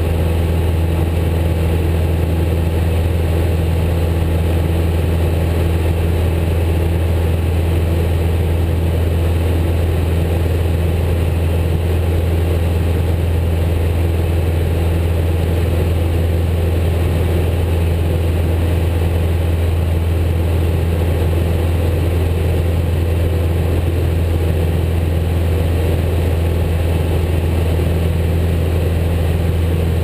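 Single-engine light aircraft's engine and propeller running at a steady low drone, heard from inside the cockpit.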